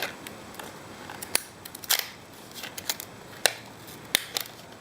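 Sharp, separate plastic clicks and crackles, about a dozen, as a new wedge-type light globe is taken out and handled.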